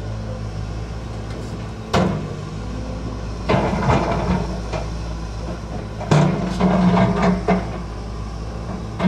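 Volvo EC210 excavator's diesel engine running steadily, with a sharp clank about two seconds in and two spells of rock clattering as the steel bucket digs into and scrapes through a pile of loose stones.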